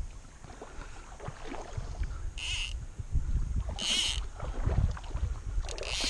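Fly-fishing tackle at work: three short rasping zips from the fly line and reel, about a second and a half apart. Under them runs a steady low wind rumble on the microphone.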